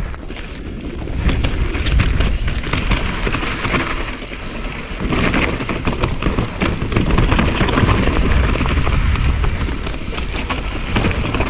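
Mountain bike rolling down a loose, rocky trail: tyres crunching over gravel and rock with constant rattling and clatter. Wind rumbles on the camera microphone. The noise builds about a second in and eases briefly near the middle.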